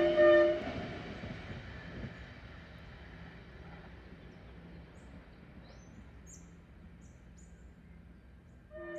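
V/Line Sprinter diesel railcar's horn cuts off about half a second in, then the railcars' rumble fades as they draw away, with a few birds chirping. The horn sounds again, fainter, right at the end.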